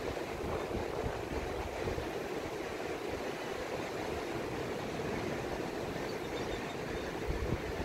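Steady wash of surf breaking on a sandy beach, with light wind rumble on the microphone near the start.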